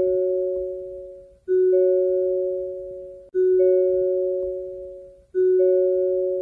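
Hyundai car's door-open warning chime: a two-note ding, lower note then higher, repeating about every two seconds and fading between strikes. It signals that a door is open.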